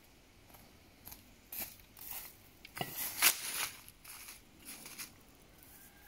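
Footsteps crunching through dry fallen leaves, a run of uneven crunches that is loudest about three seconds in.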